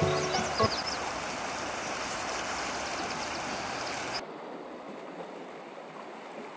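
Small creek flowing: a steady rush of water that turns softer and duller about four seconds in.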